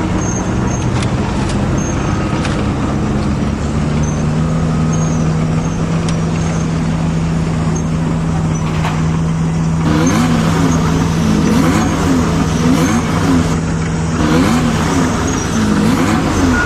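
Vehicle engine sound: a steady low hum. About ten seconds in, a whine joins it and rises and falls over and over.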